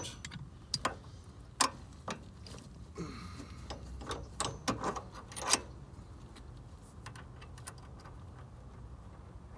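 Irregular metallic clicks and clinks of a bolt and nut being fitted by hand to a traction bar bracket, over the first five or six seconds, then quiet handling.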